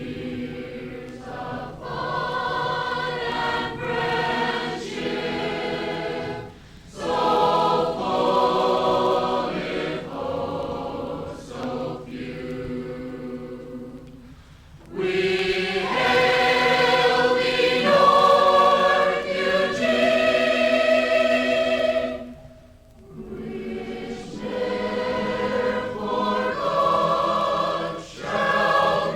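A choir singing the school alma mater in long held phrases, with short breaks between them.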